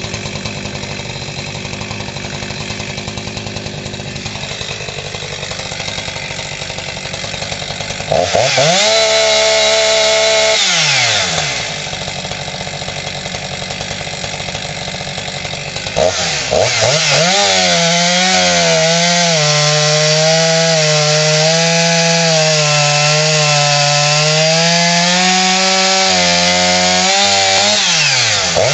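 Husqvarna 346 XP G two-stroke chainsaw idling, then revved hard for about two seconds and let drop back to idle. About halfway through it runs up again and stays at high revs, its pitch wavering and dipping briefly near the end, as it cuts through wood under load.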